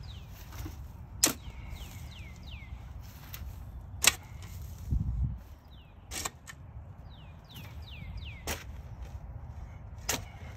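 Steel shovel blade striking and driving into soil, five sharp clanks a couple of seconds apart, the loudest about four seconds in. Between the strikes a bird sings groups of short falling whistles, and there is a brief low rumble about five seconds in.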